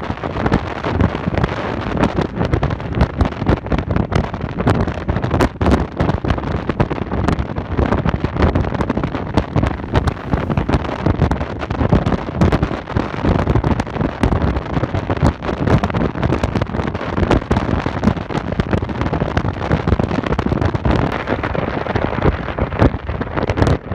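Wind buffeting the microphone of a vehicle travelling a mountain road, a loud continuous rumble full of small crackling pops, with road and engine noise beneath.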